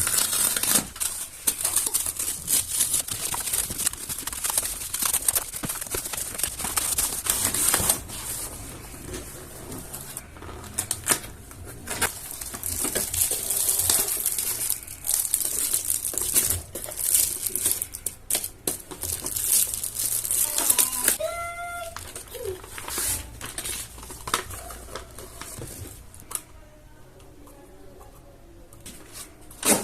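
Hand-handling noise: rustling and crinkling with many small clicks and knocks, and a short squeak about two-thirds of the way through. It becomes quieter in the last few seconds.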